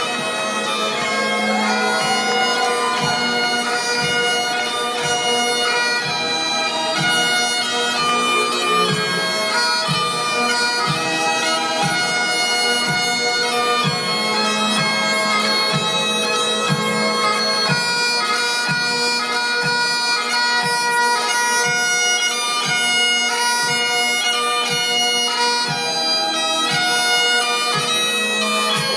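Bagpipes playing a tune over their steady drone, with a regular low beat underneath at about two strokes a second.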